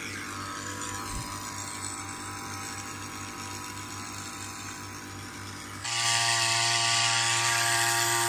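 The small engine of a backpack power sprayer running steadily while spraying a paddy crop. About six seconds in it turns suddenly louder, with a strong airy hiss over the hum.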